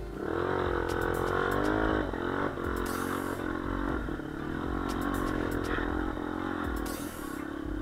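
Off-road motorcycle engine revving, its pitch rising and falling throughout, with a few short knocks and clatter.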